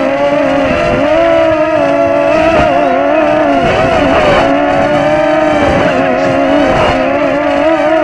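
Walkera QR Ladybird micro quadcopter's motors and propellers whining, heard from the camera mounted on the craft, the pitch wavering up and down. Gusts of wind rumble on the microphone now and then.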